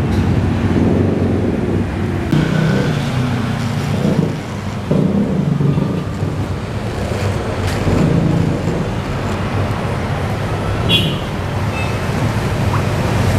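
Steady road traffic: motor vehicle engines running and passing on the street, with a few brief higher tones.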